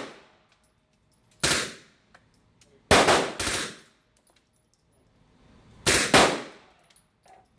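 Suppressed MP5 submachine gun firing: a single shot, then two quick pairs of shots a few seconds apart, each with a short ringing tail.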